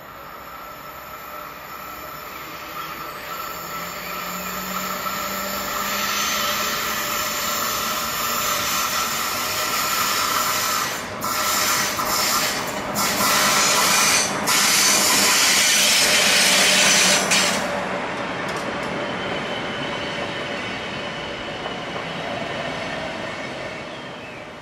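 DB class 103 electric locomotive hauling an InterCity train past on curved track. It grows steadily louder, is loudest as the locomotive goes by about two-thirds of the way in, then fades, with a steady high wheel squeal on the curve.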